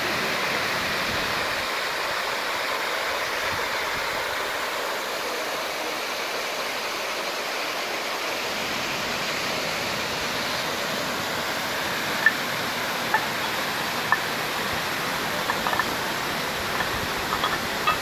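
Slap Virje waterfall: water falling steadily in several streams over rock into a pool, a continuous even rush. Over the last third a handful of short, sharp, high sounds stand out above the water.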